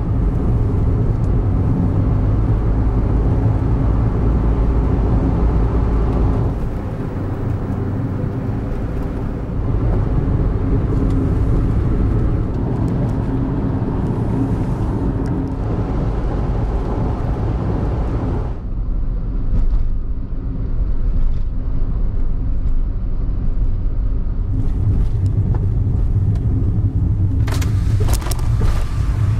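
Daihatsu Wake kei car driving: a steady low engine and road rumble that changes abruptly in character a few times, with a few sharp clicks near the end.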